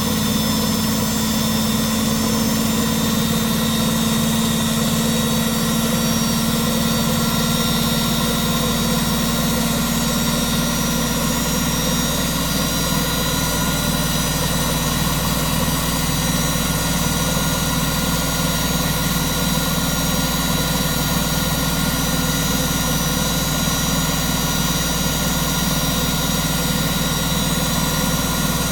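Front-loading washing machine with its covers off running steadily: the motor, drive belt and drum turning with an even mechanical hum and several high whining tones.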